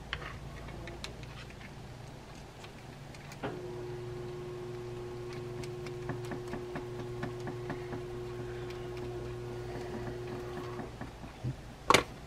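Small screwdriver turning screws into a spinning reel's body, with faint scattered ticks of metal on metal over a steady low hum. A steady tone sounds through the middle, and a sharp knock near the end as a tool is put down on the wooden bench.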